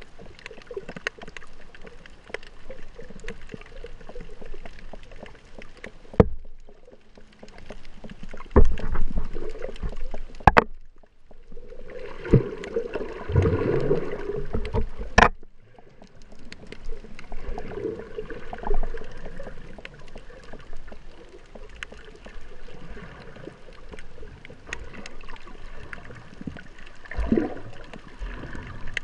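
Muffled water sound picked up by a camera held underwater: a steady rushing and gurgling that swells and fades, with a few sharp knocks about six, ten and fifteen seconds in.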